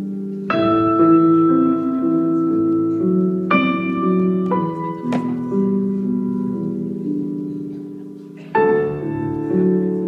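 Slow piano music for the dance: chords struck about half a second in, again around three and a half seconds and near the end, each left to ring and fade.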